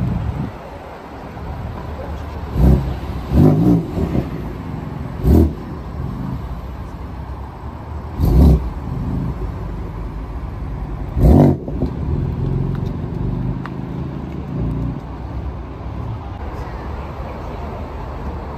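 Car engines running at idle, broken by about six brief, loud throttle blips that come singly or in quick pairs over the first dozen seconds.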